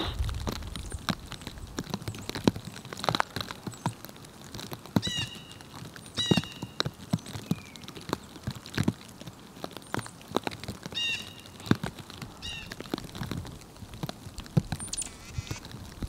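Irregular sharp taps and knocks, typical of a downy woodpecker pecking at wood or suet, with short bird calls several times, in pairs of notes about 5, 6 and 11 to 12 seconds in and once more near the end.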